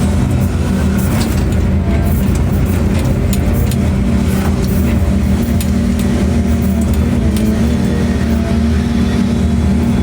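Heavy construction machinery's engine running steadily, a continuous low drone with a few faint clicks above it.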